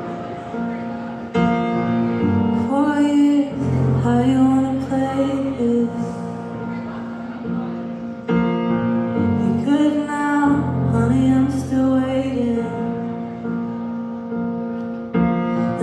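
Live indie-folk band music: sustained keyboard-like chords that change about every seven seconds, with a voice singing a melody over them in two phrases.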